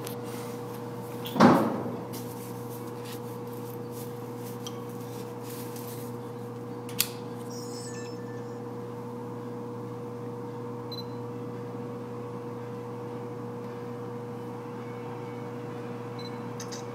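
A steady low machine hum runs throughout. A heavy thump comes about a second and a half in, and a single sharp click at about seven seconds.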